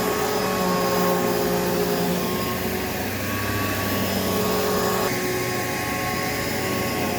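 Hoover Elite Rewind upright vacuum cleaner running steadily, a motor whine over the rush of air, whose tone shifts slightly about five seconds in. Its motor has been freshly torn down and cleaned of grass.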